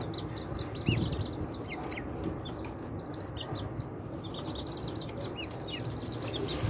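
A brood of young chicks and ducklings peeping continually, many quick, high peeps overlapping, with a soft low thump about a second in.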